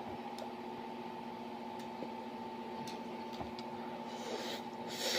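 A person eating noodles and rice: a few faint clicks and soft mouth sounds over a steady electrical hum, with a breathy rush near the end.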